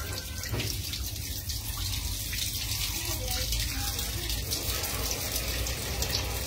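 Tap water running steadily from an outdoor faucet, splashing onto a dog being washed beneath it and onto the wet concrete floor.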